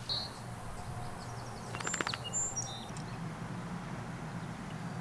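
Outdoor ambience of birds chirping in short high calls over a steady low background hum, with a brief quick rattle of clicks about two seconds in.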